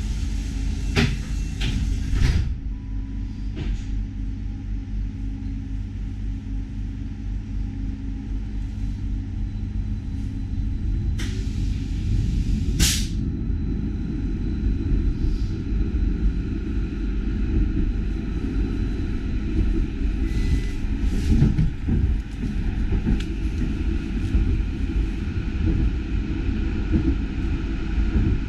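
Inside a Bergen light-rail tram: a steady low rumble and hum while it stands at the stop, with a few short, sharp hisses near the start and two about twelve seconds in. The rumble then grows louder as the tram pulls away and rolls along the track.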